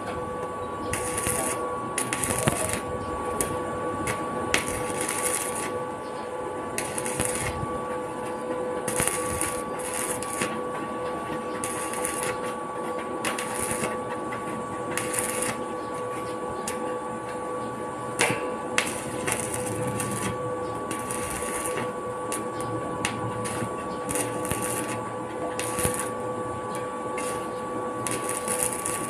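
Electric arc welding on a steel railing, the arc crackling and sizzling in irregular bursts, over a steady high hum.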